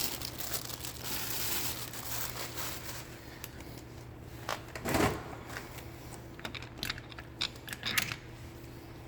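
Plastic packaging crinkling and rustling as it is handled for about three seconds, then a few scattered sharp clicks and one duller knock about five seconds in.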